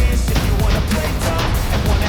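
Background music with a heavy low beat and guitar.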